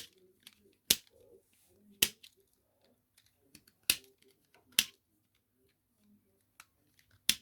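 Hard plastic pieces of a 3D puzzle ball clicking as they are handled and fitted together: about six sharp clicks at uneven intervals, with faint handling rustle between them.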